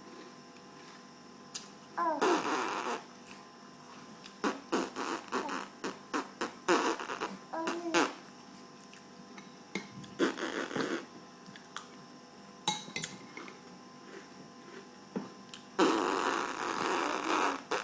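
Several sneezes, each a short breathy burst, some starting with a brief voiced intake, with small clicks and clatter between them; a longer burst near the end.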